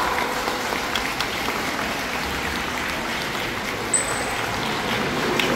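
Dolphins swimming fast laps through the show pool, churning and splashing the water, with the hum of a crowd in the hall. A short high beep sounds about four seconds in.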